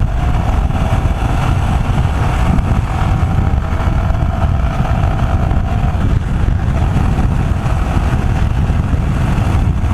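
Motorcycle riding noise picked up by a bike-mounted microphone: heavy wind buffeting and a low rumble from engine and road, with a faint steady whine that fades out about six seconds in.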